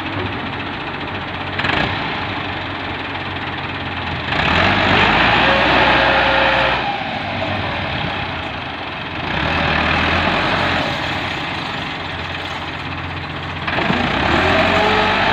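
Massey Ferguson 385 tractor's four-cylinder diesel engine labouring under load as it tries to pull a loaded trolley out of soft sand, opening up in three hard surges of revs about four, nine and fourteen seconds in and dropping back between them.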